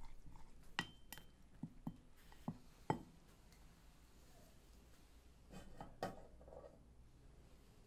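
Faint knocks of a wooden muddler against the inside of a glass tumbler as lemon and perilla leaves are crushed: about six separate knocks over the first three seconds. A few light clicks and a glassy knock follow about six seconds in.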